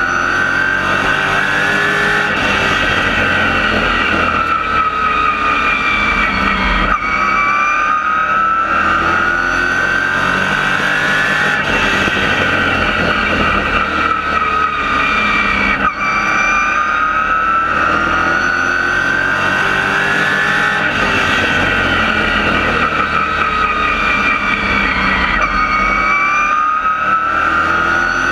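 Race car engine heard from inside the cockpit while racing on an oval track. The revs rise and fall in a repeating cycle about every five seconds, over a constant rush of noise.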